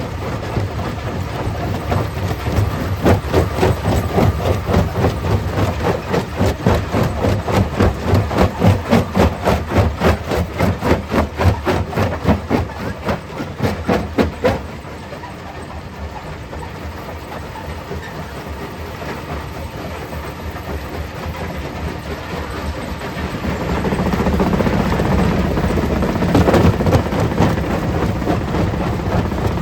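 Stone crusher plant running, with a rhythmic pounding of two to three strokes a second as rock is crushed. About halfway through it eases to a steadier, quieter rumble, then grows louder again near the end.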